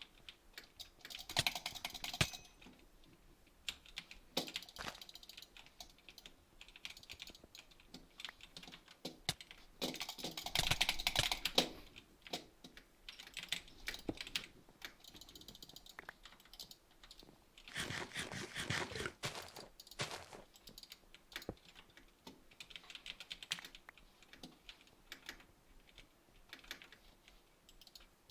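Rapid, irregular clicking in dense bursts, with sparser single clicks between them. The bursts come about a second in, around ten to twelve seconds, and again around eighteen seconds, where a brief pitched sound runs along with the clicks.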